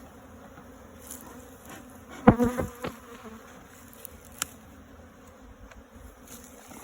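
Honeybees buzzing steadily around an opened hive, with a brief louder sound a little over two seconds in.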